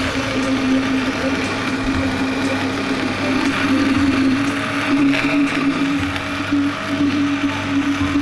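Countertop blender running steadily, a constant whirring hum with a rattle, puréeing a thick aubergine-and-cream sauce.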